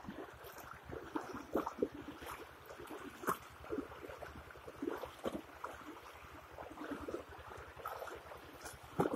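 Muddy floodwater flowing and splashing, with irregular small splashes over a steady wash of water. A low rumble of wind buffets the microphone underneath.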